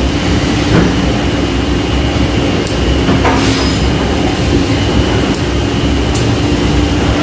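Steady industrial machinery hum with a low rumble and a constant mid-pitched drone, broken by a few sharp clicks or knocks.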